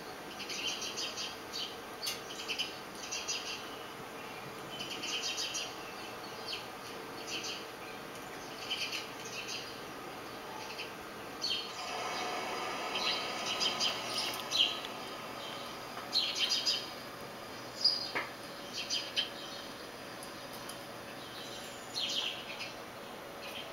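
Small songbirds chirping and twittering in short repeated clusters, from a garden video played through a computer's speakers, with one sharp click past the middle.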